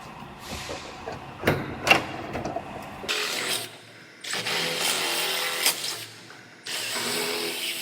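A couple of sharp knocks, then a drill running in three runs of up to about two seconds each, drilling rivet holes through an aluminum pickup bedside.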